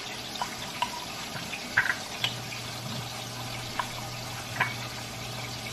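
Chicken browning in a frying pan, a steady sizzle, with a few light clinks of a metal spoon against the jar as paste is scooped out. A low steady hum starts about two seconds in.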